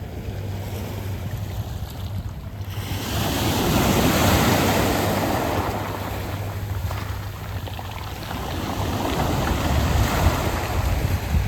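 Sea waves washing over a round-pebble beach. A wave surges in about three seconds in, eases off, and a second one builds near the end. A low wind rumble on the microphone runs underneath.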